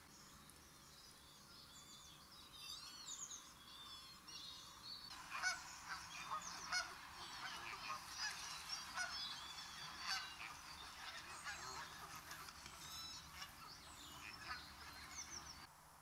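A flock of Canada geese honking, sparse at first and then many overlapping calls from about five seconds in, stopping abruptly near the end.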